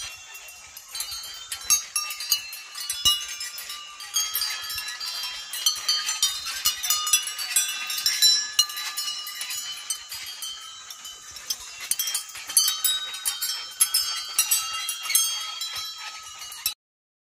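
Many brass temple bells ringing, strike after strike with their high tones overlapping and lingering; the sound cuts off suddenly near the end.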